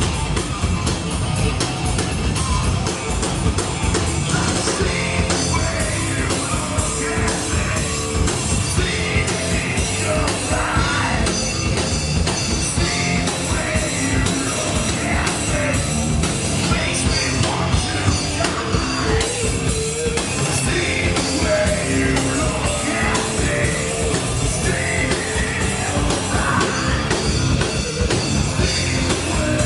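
Metal band playing live, recorded from the audience: distorted guitars, bass and drums running steadily at full volume, with shouted vocals over them.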